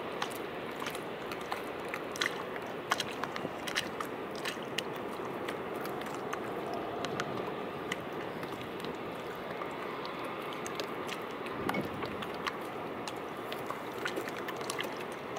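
Seawater lapping and washing against the concrete steps of a harbour quay, a steady wash broken by many small sharp clicks and crackles.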